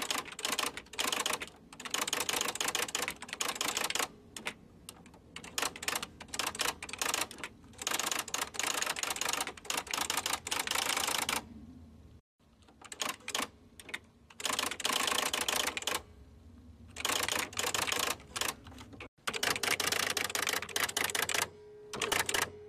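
Typewriter sound effect: rapid runs of clacking keystrokes, each run lasting a second or two, broken by short pauses.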